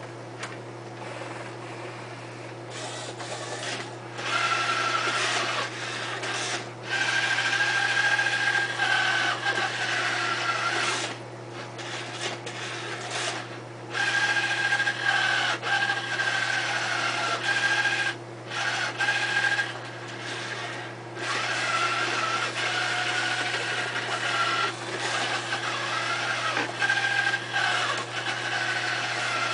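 Electric harmonic-drive gearmotors in a humanoid robot's left arm whining in repeated bursts of a few seconds each as the four upper arm joints are driven through a test, the pitch shifting a little from one movement to the next. A steady low hum runs underneath.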